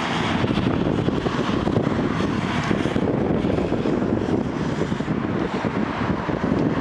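Diesel engine of a Volvo EW140D wheeled excavator running steadily while it works, lifting a flower planter on its arm.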